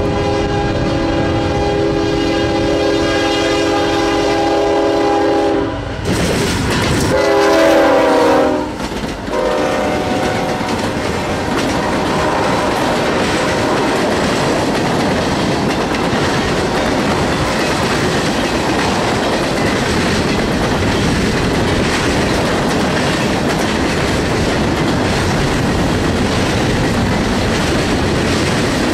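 Union Pacific freight locomotive's air horn sounding a long chord, then a louder second blast about seven seconds in whose pitch drops as the locomotives pass, and a brief last toot. After that the rumble and clickety-clack of tank cars and covered hoppers rolling past take over.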